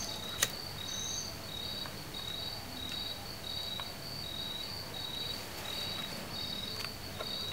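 Crickets chirping in steady, regular pulses, at least two of them at slightly different pitches. There is a single brief click about half a second in.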